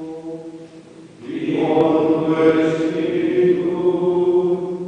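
A Cistercian monk chanting on a single reciting tone. About a second in, a group of male voices comes in louder with a sustained liturgical chant in unison, held nearly to the end.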